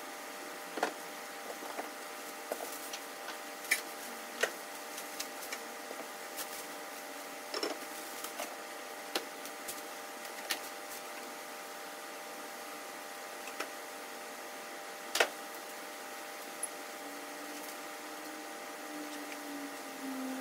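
Unpacking sounds: scattered clicks, taps and light knocks as parts, foam and a cardboard box are handled on a workbench, with one sharper knock about fifteen seconds in. A steady hum with several fixed tones runs underneath.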